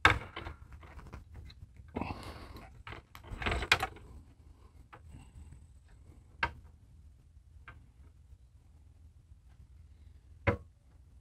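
Scattered clicks and knocks, with a short rubbing noise about two seconds in, from an RV awning gas spring strut being handled against the awning arm fittings. The strut is being pushed in to fit but will not compress far enough to go on.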